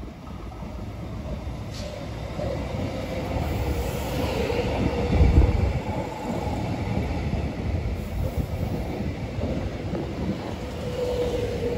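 Electric suburban multiple-unit train running into the station along the platform. Its rumble builds steadily and peaks about five seconds in as the front passes, over a steady whine that strengthens near the end.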